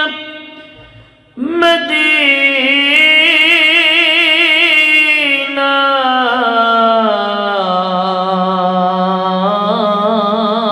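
A man's voice singing a devotional verse into a microphone in long, drawn-out melismatic phrases with a wavering vibrato. A held note fades away at the start; after a short pause about a second and a half in, a new long phrase begins and is held, sliding slowly down in pitch.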